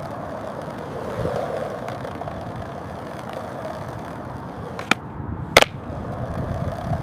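AI-generated (Google Veo 3) sound of a skateboard rolling and grinding along a concrete rooftop ledge: a steady rough scraping rumble, with two sharp clacks of the board about five seconds in.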